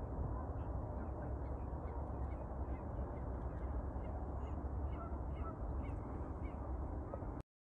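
Birds calling across open water, many short calls one after another, over a steady low rumble. The sound cuts off suddenly near the end.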